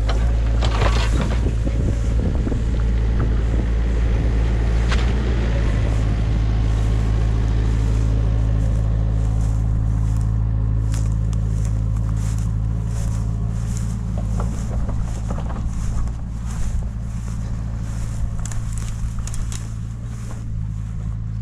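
A heavy machine's engine running steadily at a constant speed, a low even hum that slowly gets a little quieter. In the second half, grass brushes and rustles against the moving microphone.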